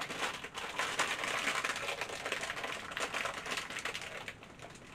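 Clear plastic packaging rustling and crinkling as a wrapped packet is handled and opened by hand, a dense run of small crackles that dies away near the end.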